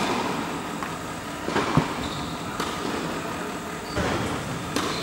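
Tennis balls struck by rackets in a rally at the net, about five sharp hits a second or so apart, over a steady background noise in an indoor tennis hall.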